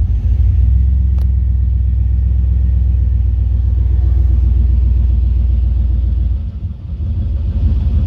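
Chevrolet C1500 pickup's engine idling steadily while still cold, now running after a cleaned distributor cap and rotor cured its crank-but-no-start. There is a sharp click about a second in, and the low rumble dips briefly near the end.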